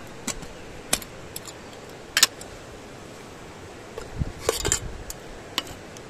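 Light metallic clinks and rattles of a small camping kettle and its lid being handled: about half a dozen separate sharp clinks, the loudest about two seconds in, and a quick cluster of rattles near the end.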